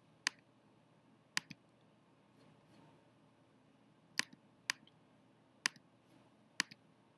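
Computer clicks: about seven short, sharp clicks spaced a second or so apart, two in quick succession about a second and a half in, against quiet room tone.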